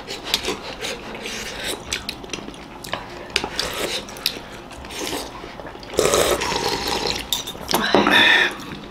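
Spoons and forks clicking and scraping against ceramic soup bowls while hot jhol momo soup is eaten. A louder slurp of the hot soup comes about six seconds in, with a short voiced sound from an eater near the end.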